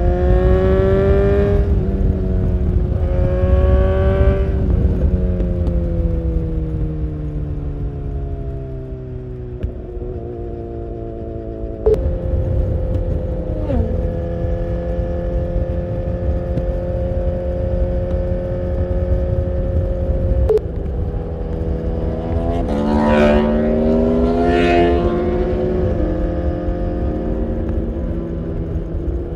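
BMW S1000R's 999 cc inline-four with an Akrapovic full exhaust, heard from on the bike. It revs up twice in quick succession near the start, then engine speed falls away over several seconds. It holds steady at cruise, with a sharp knock about twelve seconds in, and revs up hard twice more past twenty seconds, with constant wind rumble underneath.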